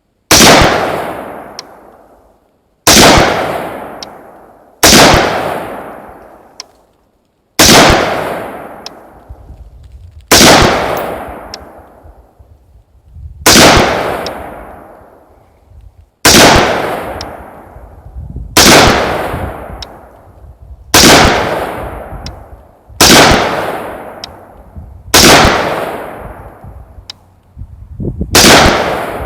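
AR-15-style rifle firing 55-grain ball ammunition: about a dozen slow, aimed single shots, one every two to three seconds, each a sharp report that dies away over a second or so.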